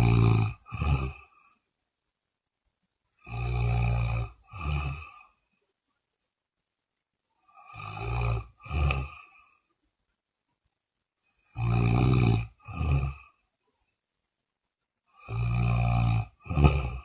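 A person snoring in a steady rhythm, about every four seconds. Each breath gives a long snore of about a second, then a shorter second snore, with silence between the breaths.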